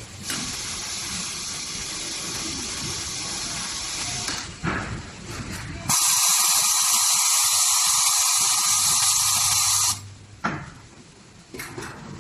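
High-frequency PP binder welding press hissing steadily for about four seconds. After a short clunk, a louder, higher hiss runs for about four more seconds, cuts off suddenly and is followed by a click.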